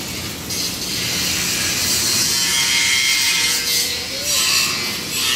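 Electric arc welding on a steel frame: the arc gives off a steady sizzling hiss.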